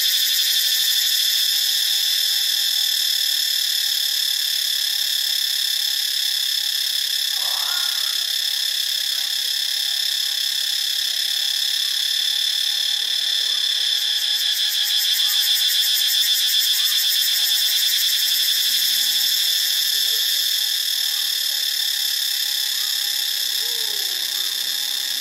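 Cicada singing: a loud, steady, high-pitched buzz with a fast, fine pulsing, holding without a break. A few faint, short, lower sounds come through beneath it now and then.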